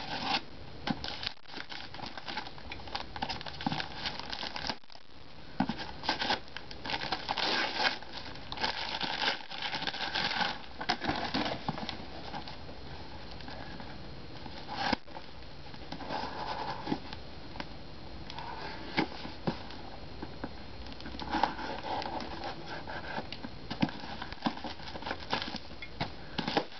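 Knife slitting and scraping through the packing tape and brown paper of a parcel, with the paper crinkling and tearing in irregular bursts.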